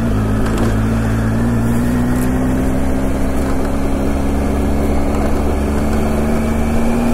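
Motorcycle engine running steadily as the bike cruises at low speed on a gravel road. Its engine note is held and creeps slightly higher, over a steady rush of wind and road noise.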